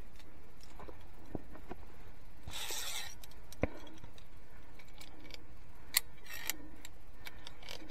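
Via ferrata lanyard carabiners clinking and scraping on the steel safety cable and rock as the climber moves up: a brief rustle about two and a half seconds in, then a few sharp single clicks.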